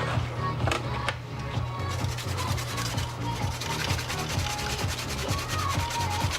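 Fast, scratchy rubbing that starts about two seconds in, over background music with a steady low bass.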